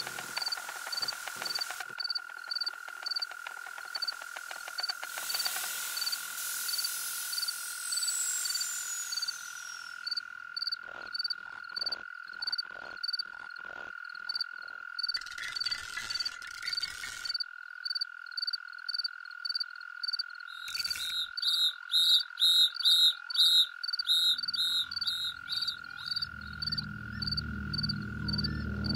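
Outdoor animal ambience: a steady high trill with short regular chirps above it, and croak-like calls that grow louder about two-thirds of the way through. A low droning hum comes in near the end.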